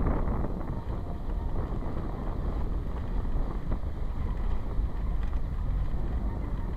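Wind rushing over the microphone of a moving camera, over a steady low vehicle rumble.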